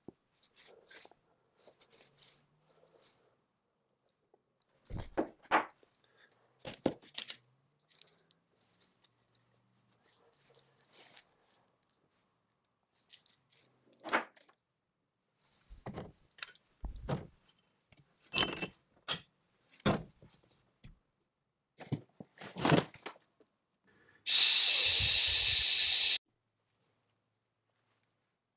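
Small metal parts being handled, wiped and set down: scattered clinks, clicks and scrapes. Near the end comes a loud steady hiss lasting about two seconds.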